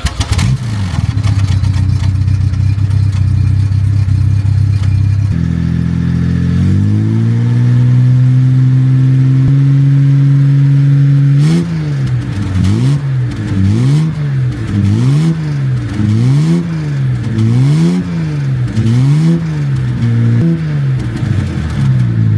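Car engine idling steadily, then rising to a higher held speed, then revved up and down repeatedly, about once a second, over the last ten seconds.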